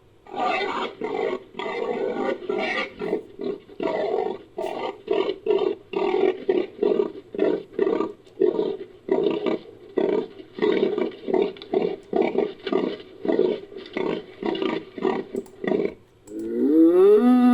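Made-up giant tapir call built from beetle and bull recordings: a long run of short, rasping grunts, about two a second, then near the end a louder drawn-out bellow that bends in pitch.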